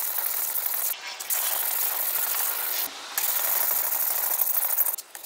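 A large gyuto knife rubbed back and forth by hand on a wet whetstone, its back face held flat against the stone: a steady gritty scraping, broken by short pauses about a second in, about three seconds in and near the end.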